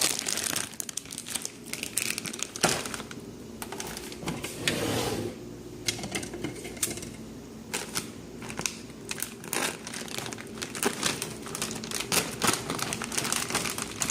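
Plastic food packaging crinkling and crackling as it is handled, with irregular crackles throughout.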